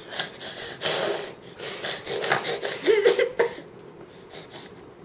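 A baby's breathy, cough-like grunts and noises while eating spaghetti, with a short rising vocal squeal about three seconds in.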